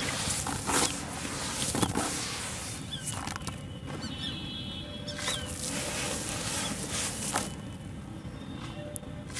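Wet sand-and-cement lumps crumbled and squeezed by hand in a bowl of water: gritty crunching and wet squishing, with sharp crunches about one and two seconds in. It eases into softer, quieter crackling from about three and a half seconds on.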